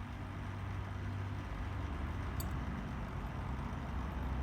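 Steady low mechanical hum with a faint hiss above it, slowly getting a little louder.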